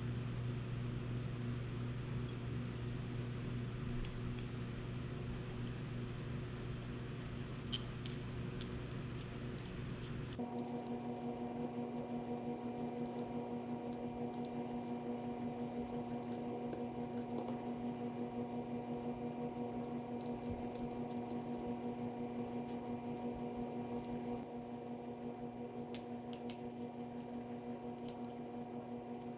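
Small hand-tool work: scattered faint clicks and taps of a hex driver and screws pulling press nuts into a drone frame plate, over a steady electrical hum. The hum changes character abruptly about ten seconds in.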